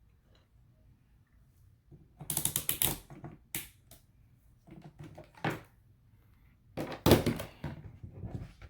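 Clattering run of quick clicks and knocks from parts being handled, loudest about two seconds in and again near seven seconds, with a few single clicks between.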